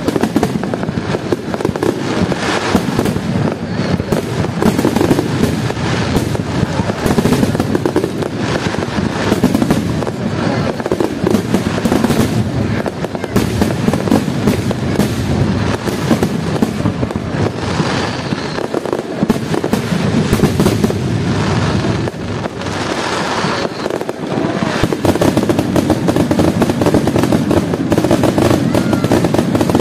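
Aerial firework shells bursting in a rapid, unbroken barrage: overlapping bangs and crackling with a continuous rumble underneath.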